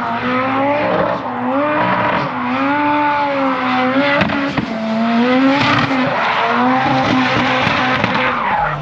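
Drift car engine revving, its pitch rising and falling again and again as the car slides, with tyres screeching.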